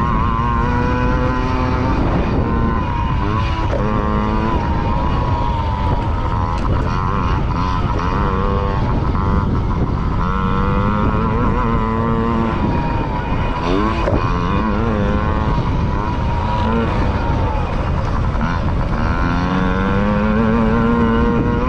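A Yamaha PW50's small 49cc two-stroke single revving up and down over and over as it is ridden around a dirt track, heard from the bike under a constant low rumble.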